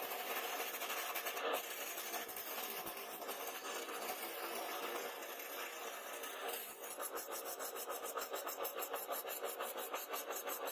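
Electric wood lathe spinning a wooden handle blank while a hand-held chisel cuts it, giving a steady scraping hiss of tool on wood over the motor. About seven seconds in, the cut turns into a rapid, even pulsing.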